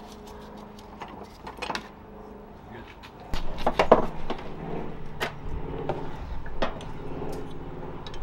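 Sharp knocks and clunks of a K-Sport coilover assembly being handled and worked up into a car's front wheel well, metal parts bumping, starting about three seconds in.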